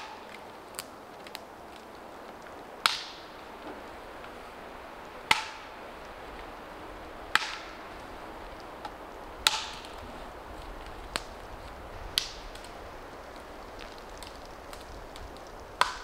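Dead lower branches being knocked and snapped off a pine trunk: six sharp, woody cracks roughly two to three seconds apart, with a few lighter ticks between them.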